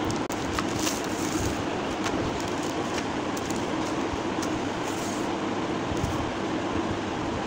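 Steady, even background hum and hiss, like a running fan or air conditioner, with a few faint clicks from handling the packaging.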